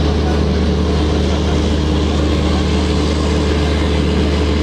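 Diesel train running at a station: a steady low engine drone under a continuous rumbling noise, unchanged throughout.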